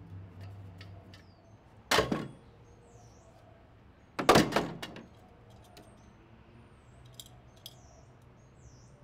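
Objects dropped into a plastic wheelie bin: a loud thud about two seconds in, then a longer clattering impact just after four seconds. Small birds chirp faintly in between.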